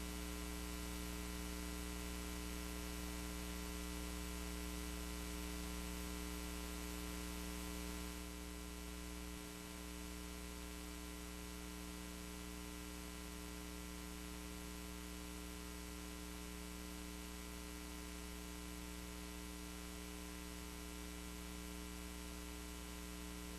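Steady electrical mains hum, buzzy with many overtones over a faint hiss, on a faulty audio feed where the clip's sound should be. It drops a little in level about eight seconds in.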